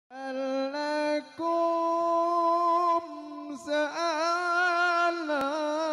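A male vocalist sings an Arabic sholawat solo into a microphone, holding long high notes and winding through ornamented melismatic turns, with no drums playing.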